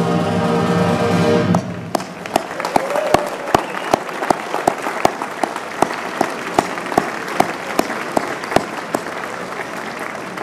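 Choral music ends on a held chord about a second and a half in, and a large outdoor crowd applauds, with one person's claps close and loud at about three a second over the general clapping.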